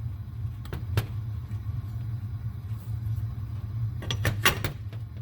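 Small parts being handled: a rubber bushing slid onto a mower's steel brake bracket, with a sharp click about a second in and a quick run of clicks near the end, over a steady low hum.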